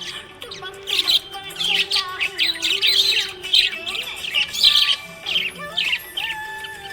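Budgie chirping and warbling in quick, busy runs of short notes, over background music with held notes.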